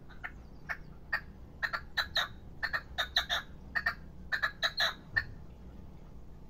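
Caged young male red-legged partridge, a decoy bird, calling: a run of short, sharp notes in quick clusters for about five seconds, then it stops.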